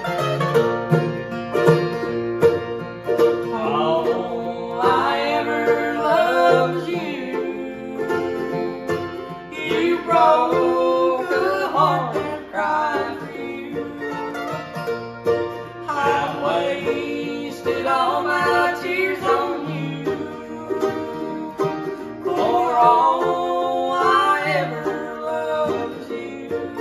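Acoustic guitar and mandolin playing a bluegrass song together, with a man singing the verse in four phrases over the strummed chords.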